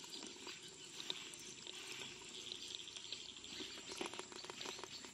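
Faint, irregular clicking and scratching of live crabs' legs and shells against one another and the sides of a plastic bucket.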